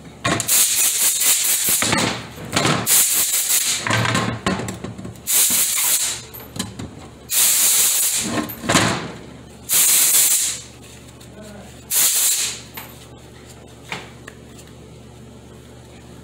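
A series of short hissing spray blasts, about eight of them over some twelve seconds, each lasting from a moment to a second or so, after which they stop.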